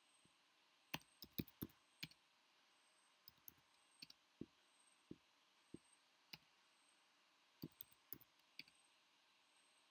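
Computer keyboard keys being typed in irregular single strokes and short clusters, with pauses between them.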